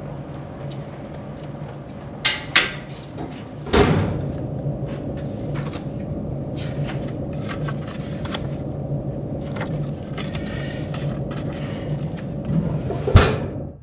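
Metal school locker: a couple of latch clicks, then the door opening with a clang about four seconds in, small knocks and rattles of things being moved inside, and the door slammed shut near the end, over a steady hum.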